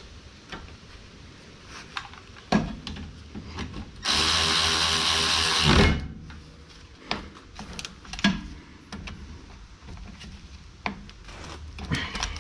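A power tool runs steadily for about two seconds, with scattered knocks before and after it.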